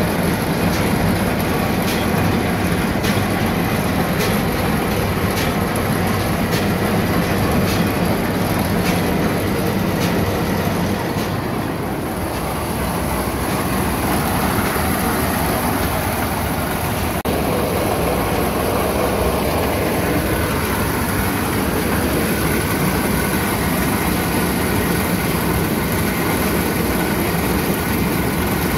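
John Deere 435 round baler running empty off the tractor's PTO, its belts and chain drives turning, on a test run after a new bearing was fitted to the front stagger roller. A regular click comes about every two-thirds of a second; about twelve seconds in the clicking stops and a steady machine running sound carries on.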